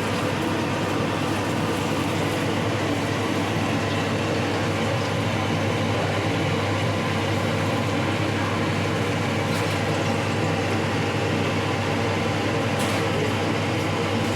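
A steady mechanical hum with a low drone, unchanging in level.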